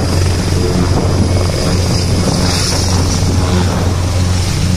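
Military transport helicopter running on the ground with its rotors turning: a loud, steady drone of rotor and engines with a deep low hum.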